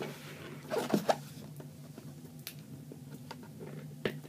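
Cardboard and plastic packaging being pulled and torn open by hand: a short burst of ripping about a second in, then scattered clicks and rustles as the box is worked.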